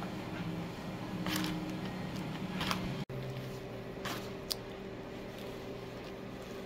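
Steamed sticky rice being turned and spread with a plastic paddle on a plastic-lined tray: a few soft, short rustles and squishes as the rice is worked to let the steam out and cool it, over a steady low hum.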